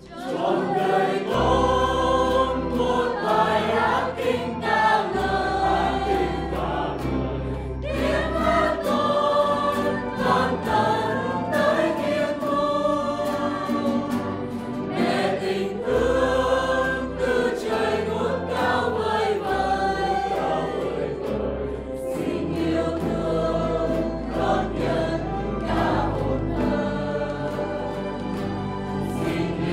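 Mixed choir of men's and women's voices singing a Vietnamese hymn together, accompanied by acoustic guitars and an electronic organ holding low bass notes that change every couple of seconds.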